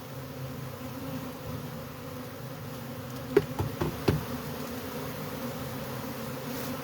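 Many honey bees buzzing steadily in the air around a disturbed colony. A few short knocks come about halfway through.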